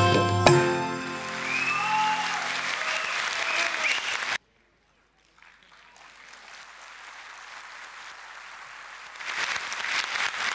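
Auditorium audience applauding as the band's last notes die away after a song. The applause cuts out abruptly about four seconds in, comes back faintly a second later and grows louder near the end.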